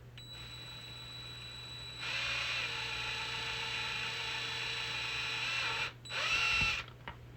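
Small power drill running. Its motor whine starts just after the start; about two seconds in it gets louder as the bit cuts into the plastic housing of a PKE meter prop. It stops near six seconds, then comes back for a short burst of under a second.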